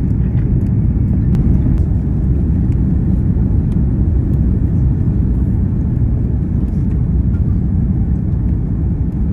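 Airbus A330-200 cabin noise on final approach, heard from a window seat inside the cabin: a steady low rumble of the engines and the air rushing past the fuselage.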